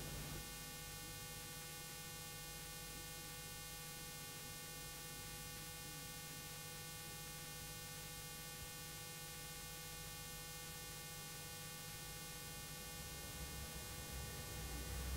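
Faint steady hum and hiss from a silent stretch of VHS tape playback, with a few thin steady tones. A faint low rumble rises near the end.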